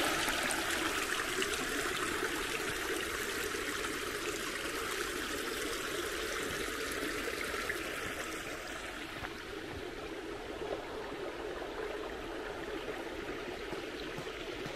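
A shallow stream trickling over stones and leaf litter, a steady rush of water. About nine seconds in it becomes quieter and duller.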